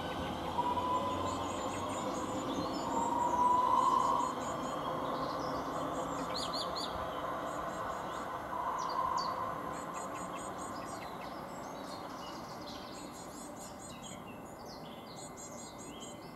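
Class 323 electric multiple unit accelerating away, its electric traction whining with a few short rising tones and fading steadily into the distance. Birds chirp and sing over it.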